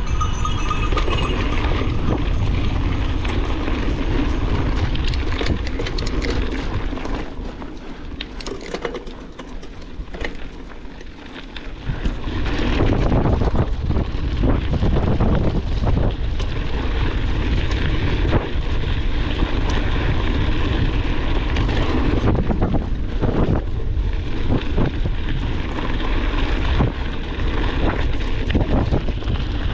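Mountain bike rattling over a rough trail, with many short knocks from bumps and wind noise on the mounted camera's microphone. It quietens for a few seconds about a quarter of the way in, then picks up again.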